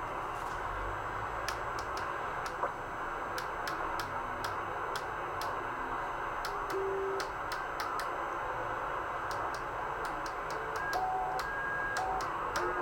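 Pearce-Simpson Superline Mark II CB radio receiving on 27 MHz lower sideband: steady static hiss from its speaker, cut off above the voice range, with scattered sharp clicks. Brief whistle tones come in over the second half.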